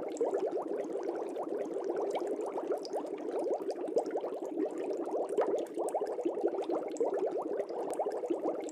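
Aquarium water bubbling: a steady, dense stream of small air bubbles.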